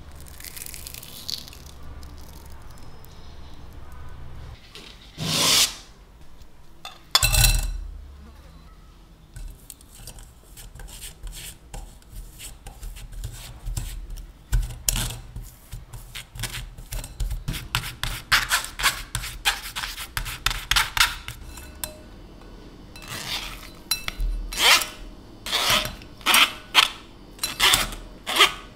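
Metal spoon pressing and scraping cooked potato through a stainless-steel mesh sieve, a long run of short, quick scraping strokes, with two louder single noises about five and seven seconds in.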